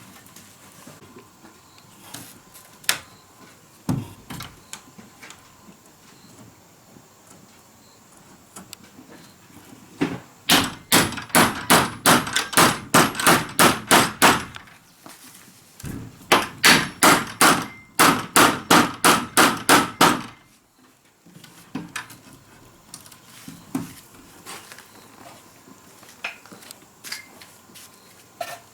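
Hammering: two runs of quick, even hammer blows, each a few seconds long with a short pause between, and a few single knocks before and after.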